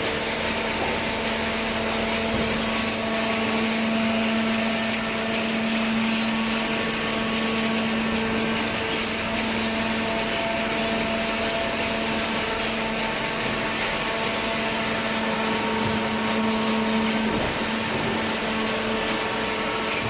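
Waste paper baler machine running with a steady mechanical hum that holds the same pitch throughout.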